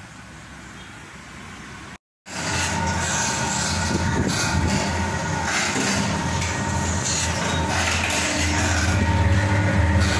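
Rotary cold-press oil machine (marachekku / lakdi ghana type) running, its pestle turning in the steel mortar and grinding oilseed paste. It is a steady low hum with grinding noise over it, and it comes in suddenly about two seconds in, after quiet room tone.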